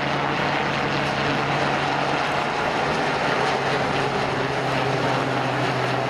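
Westland Sea King HU4 helicopter flying past, its turbine engines and rotors making a steady drone with a held low tone and a higher whine.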